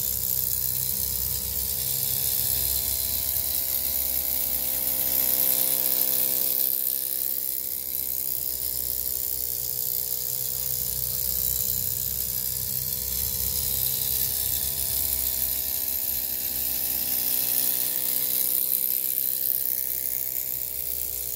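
Miniature live-steam traction engine running under its own steam, its little cylinder giving a fast, buzzing exhaust beat over a steady hiss of steam. The pitch of the buzz sags and picks up again a couple of times as its speed varies.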